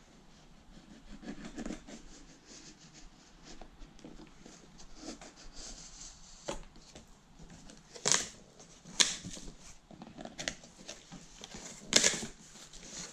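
Package being unwrapped: packing tape and plastic wrap picked at and peeled off a cardboard box, with cardboard and plastic rustling and scraping under the hands. There are three sharp, louder rips or snaps, about two-thirds of the way through, a second later, and again near the end.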